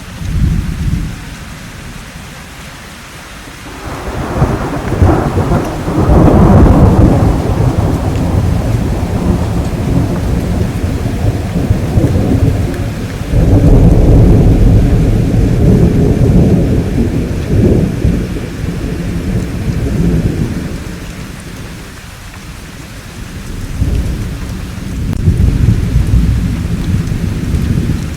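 Thunderstorm: steady rainfall under rolling thunder, with long rumbles building about four seconds in and again about halfway through, and a weaker rumble near the end.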